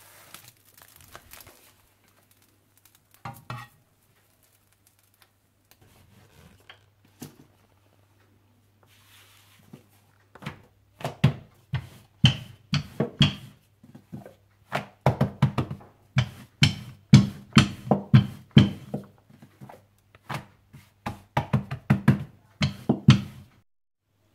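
Percussion music: drum strikes, a few sparse ones at first, then a steady run of about three strikes a second from about ten seconds in that stops shortly before the end.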